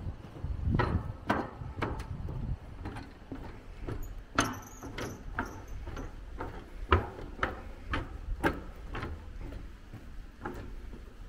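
Footsteps on the timber plank deck of a footbridge, about two steps a second, with a brief high squeak about four seconds in.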